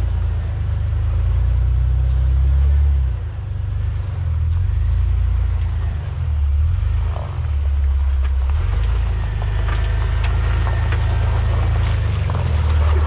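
Jeep Wrangler TJ engine running at low revs as it crawls over a boulder, the throttle rising and falling. In the last few seconds, scattered clicks and knocks join it.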